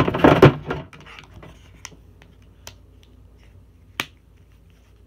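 Handling clatter of an LG G8X ThinQ smartphone being fitted into its clip-on Dual Screen case, then a few sharp plastic clicks, the loudest about four seconds in.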